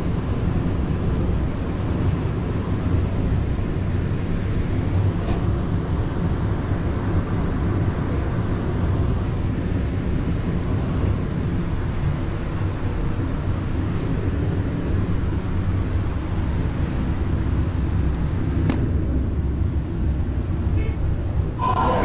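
Glass elevator cab running up a tower: a steady low hum and rumble, with a few faint clicks.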